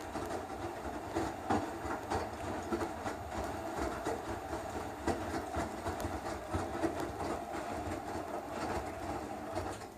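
Electrolux Eco Turbo TRW12 washing machine running, a steady rumble with irregular knocks and rattles; it quietens just before the end.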